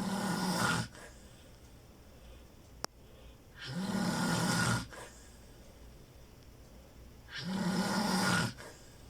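Snoring: three long snores, each about a second, coming roughly every four seconds, with a single faint click between the first two.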